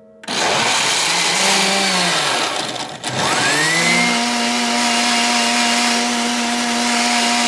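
Countertop blender switched on about a quarter second in, blending a shake with frozen strawberries. Its motor pitch wavers under the load, drops sharply about three seconds in, then speeds back up and runs at a steady pitch.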